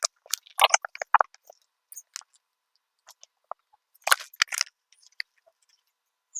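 Short clicks and light crackles from hands handling small rack parts, in a cluster at the start and another about four seconds in.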